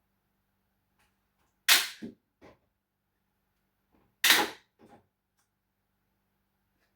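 Two sharp, loud clacks about two and a half seconds apart, each followed by one or two softer knocks.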